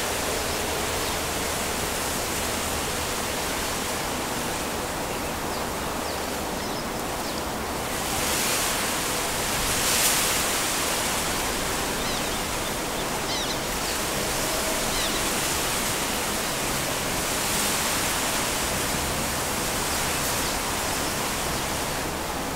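Wind blowing steadily through reeds and trees, with gusts swelling about eight and ten seconds in and a few faint high chirps.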